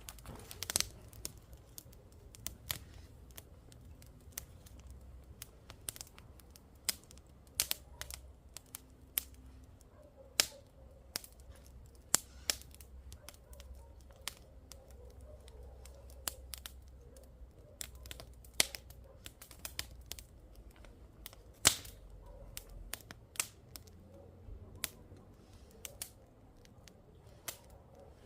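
Wood fire crackling: irregular sharp pops and snaps, a few a second with some louder cracks, over a low steady rumble.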